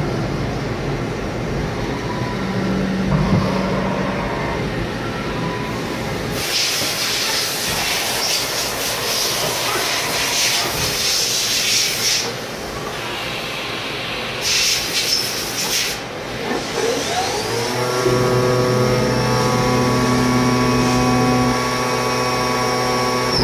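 Haas VF-0 vertical machining center cutting metal under coolant, with a steady hiss of spray and chips. The hiss grows stronger in two stretches. About three-quarters of the way through, a whine of several tones rises and then holds steady as the spindle spins up, and it starts to drop right at the end.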